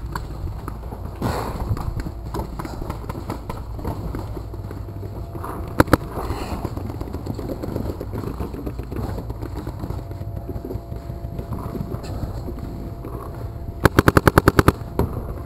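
Paintball marker firing: two quick shots about six seconds in, then a rapid burst of about nine shots in under a second near the end.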